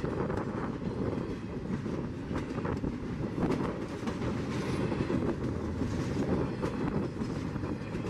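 Intermodal freight train of double-stack container well cars rolling past close by: a steady rumble and rattle of wheels on rail, with irregular clacks as the wheels pass over the track.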